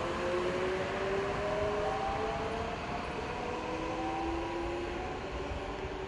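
Kintetsu electric train pulling away, its traction motors whining in tones that slowly rise in pitch as it gathers speed, over the rumble of wheels on the rails. The sound fades a little as the train moves off.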